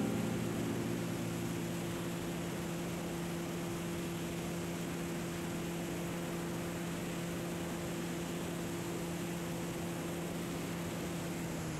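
Cessna 175 Skylark in cruise flight: a steady engine and propeller drone holding two low tones, under an even rush of wind noise.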